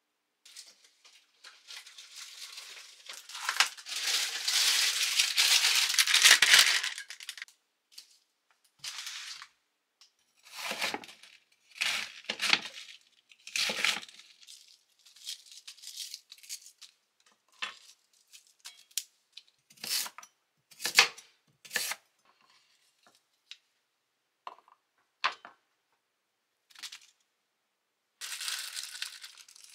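Crinkly material being torn and handled. A long stretch of tearing and crinkling starts about three seconds in, followed by short rustles and clicks, and more crinkling near the end.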